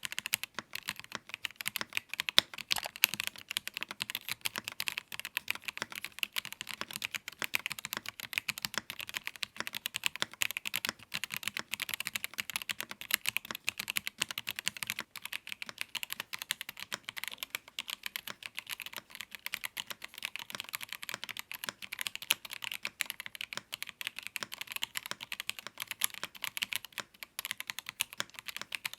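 Steady, fast typing on a YUNZII KEYNOVO IF98 Pro mechanical keyboard: a dense, unbroken stream of key clacks.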